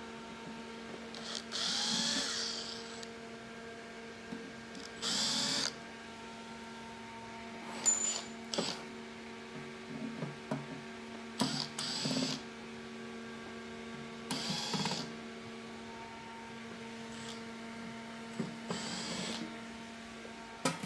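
Screws being taken out of a spot welder's sheet-metal case: a series of short bursts of tool and handling noise over a steady hum.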